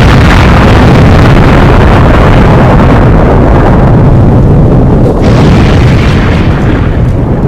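A loud, heavily distorted explosion sound effect: a dense, continuous low rumble that cuts off suddenly near the end.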